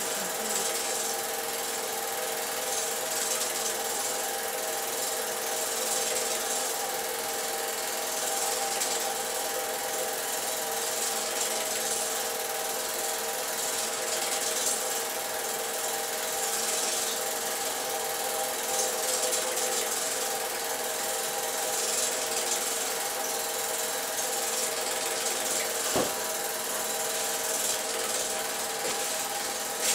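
Film projector running: a steady mechanical whir with a hum and hiss, and a single click near the end.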